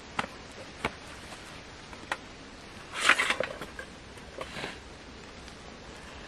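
Hands handling food-prep gear, a cutting board, a knife and food: a few small clicks and knocks, a short rustle about three seconds in and a smaller one a second and a half later.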